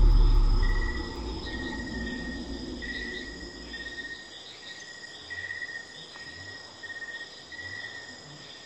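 A deep rumble fades out over the first second, leaving a jungle ambience of insects: a steady high buzz with a chirp repeated in short pulses. A few soft low thumps come near the end.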